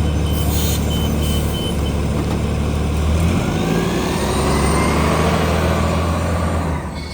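City bus engine running, heard from inside the bus, a steady low rumble with a rising whine in the middle as the bus moves. The sound drops noticeably quieter near the end.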